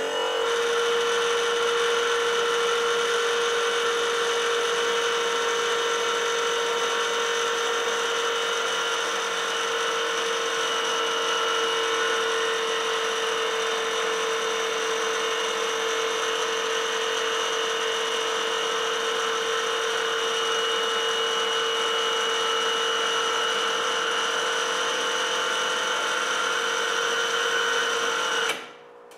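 Motor-driven machine running with a steady, high whine, one held tone with overtones above it; it breaks off briefly near the end.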